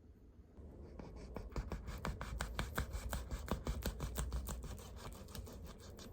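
Dense, irregular crackling and rustling of something being handled close up, building up about a second in and thinning out near the end.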